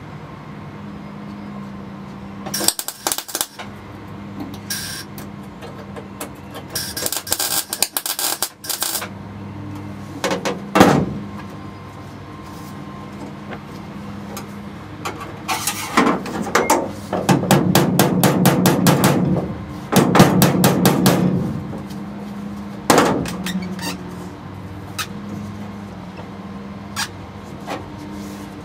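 MIG welder laying short bursts of weld on a thin sheet-steel floor pan, each burst a rapid crackle about a second long, with the longest runs of about two seconds each past the middle. A few single sharp knocks come between the bursts, over a steady low hum.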